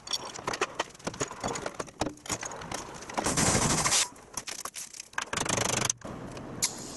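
Metal clattering and rapid clicking from hand work on a truck body's stainless fittings, with a short louder burst of rasping noise about three seconds in. The sound breaks off abruptly near the end, giving way to a steady low hum.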